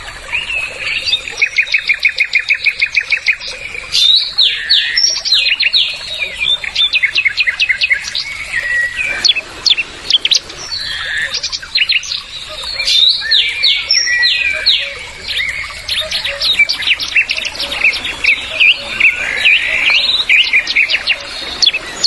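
Songbirds singing busily, with overlapping chirps, whistled notes and a fast, even trill in the first few seconds.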